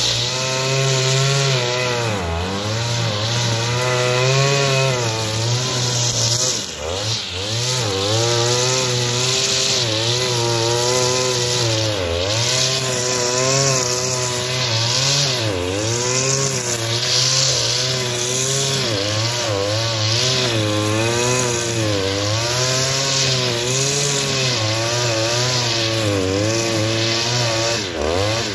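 Oleo-Mac BC 530 T two-stroke petrol brushcutter running at high revs while cutting tall dry grass, the engine note wavering up and down as the cutting head bites into the grass. The revs dip briefly about seven seconds in and again near the end.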